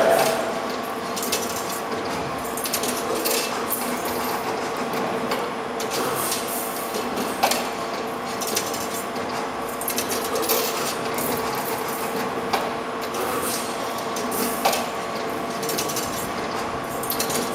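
Full-servo CNC 3D wire bending machine running while bending 3.2 mm wire: a steady servo whine under frequent sharp clicks and clacks of the moving parts.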